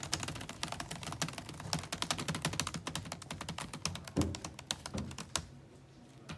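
Fast typing on a laptop keyboard, a quick run of key clicks with one heavier knock just after four seconds, stopping about five seconds in.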